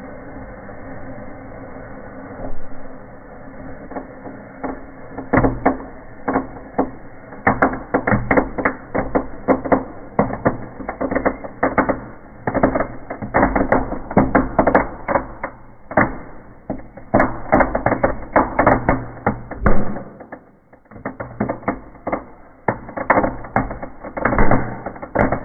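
Small indoor fireplace firework crackling and popping in rapid, irregular bursts, played backwards, over a steady low hum. The crackling starts about five seconds in and dips briefly near the end.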